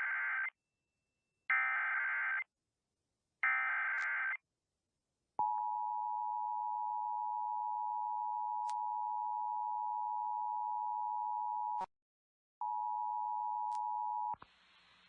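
Emergency Alert System SAME header: three short bursts of screeching digital data tones, about a second each, followed by the EAS attention signal, a steady two-note tone (853 and 960 Hz) that drops out for under a second near the end and resumes for about two seconds before stopping. Together they announce an emergency alert broadcast.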